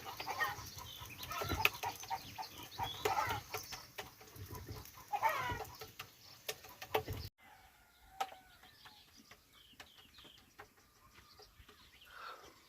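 Chickens clucking, with calls coming over and over. About seven seconds in, the sound cuts off sharply to a much quieter background with only faint calls.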